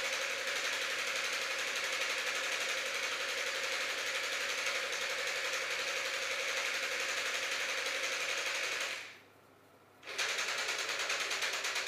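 Battery-powered electric motor driving a homemade magnet reciprocating engine model, running with a fast, even mechanical rattle. It stops about nine seconds in and starts again about a second later.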